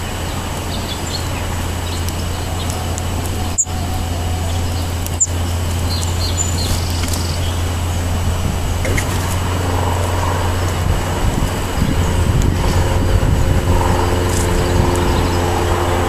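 Steady rumble of motor traffic with a low hum, growing louder in the last few seconds as a vehicle's engine comes close. A few faint, short bird chirps.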